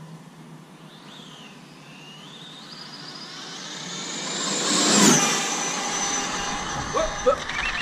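Brushless electric RC car, an Arrma Infraction, making a high-speed pass: its high motor whine climbs in pitch and loudness as it approaches and peaks about five seconds in as it goes by. The pitch then drops sharply and the whine stays strong. Two short chirps come near the end.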